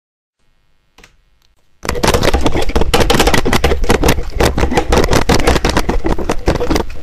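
Electric countertop blender running: after a faint click about a second in, the motor comes on loud about two seconds in and runs steadily with a rapid, rattling grind.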